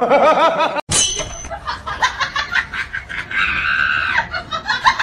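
A cat meowing, cut off after less than a second. Then laughter, with a long high-pitched cry about three and a half seconds in.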